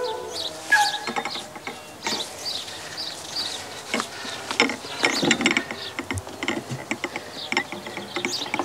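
Rattling, clicking and knocking of a small round table with a metal frame as it is picked up, carried and set down. Near the end there are light knocks and clinks as a cup is set on the tabletop.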